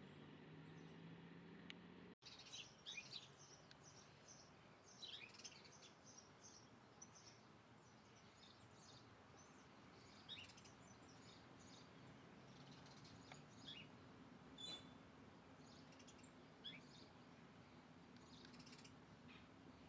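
Birds chirping faintly: many short, high calls in quick succession, starting about two seconds in after a brief dropout, over a low steady hum.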